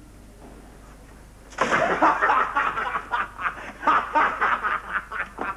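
Quiet room hiss, then about a second and a half in, boys break into choppy snickering and laughter that keeps going.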